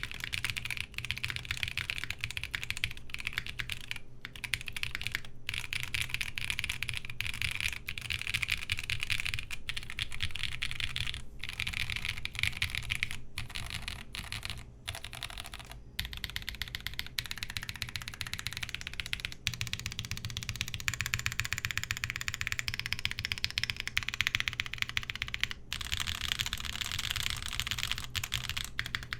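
Typing on a 7V mechanical keyboard fitted with Salmon tactile switches lubed with Carbon GS2: a continuous run of keystroke clicks with a few short pauses.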